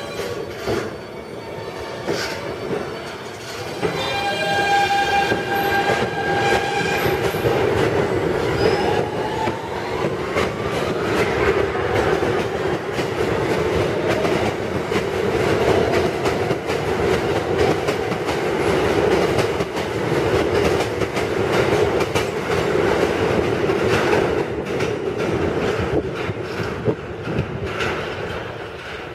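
Siemens-propulsion R160B subway train pulling out of the station. A steady electric motor tone as it starts off turns into a rising whine as it accelerates. The wheels rumble and clatter as the cars run past, then fade near the end as the train leaves.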